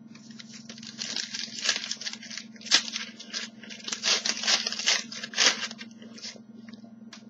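Trading cards being handled: an irregular run of short paper scrapes and rustles as cards slide against each other, over a steady low hum.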